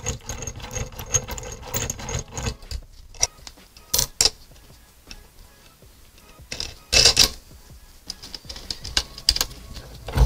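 Steel bearing-puller parts being handled and fitted: nuts, threaded rods and the puller's crossbar clinking and rattling against the bearing separator. A fast, light rattle for the first few seconds gives way to scattered sharp clicks, with a louder clatter about seven seconds in.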